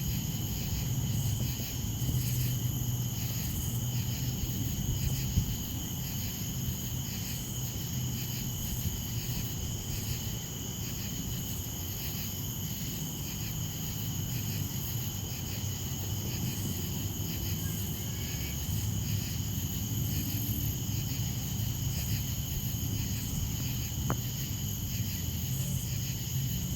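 Chorus of crickets and other night insects, trilling steadily on several high pitches, over a low steady rumble.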